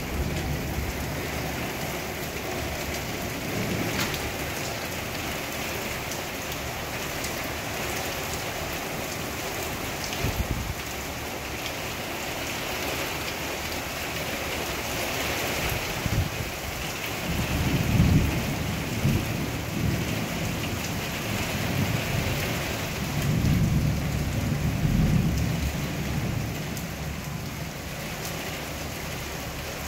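Heavy rain pouring steadily, with low rolling thunder rumbling twice: once a little past halfway through and again about three-quarters of the way in.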